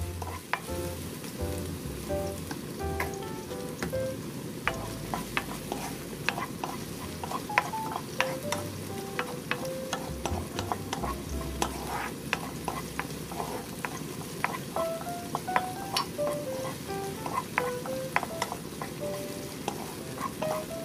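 Finely chopped green onion sizzling in oil in a nonstick wok while a wooden spatula stirs it, with frequent sharp clicks and scrapes of the spatula against the pan. The scallions are being fried to draw out green-onion oil.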